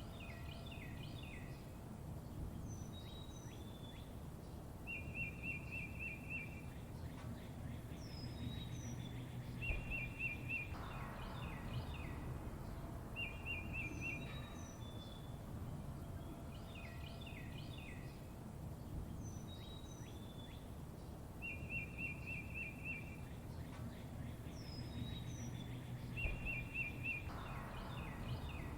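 Several songbirds chirping: short high whistles that drop in pitch, quick clusters of notes, and a rapid even trill lasting about a second and a half, over a steady low background rumble. The same run of calls comes round again about every 16 seconds, as in a looped recording.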